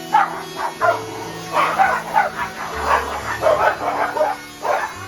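Dogs barking over and over, short barks and yips a few tenths of a second apart, over background music of long held low notes.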